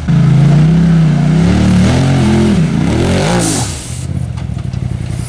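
Side-by-side UTV engine revving hard under full throttle, its pitch climbing and falling in a few surges as it attempts a steep rock climb. There is a brief hiss about three and a half seconds in, then the engine drops back to a lumpy idle.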